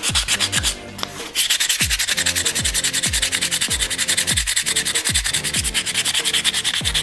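Hand sanding a small wooden part with quick back-and-forth strokes to smooth its shape, pausing briefly about a second in. Background electronic music with a steady beat of deep drum hits runs underneath.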